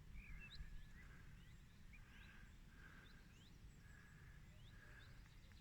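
Faint outdoor birdsong: scattered short rising chirps from small birds, over a low rumble of wind on the microphone.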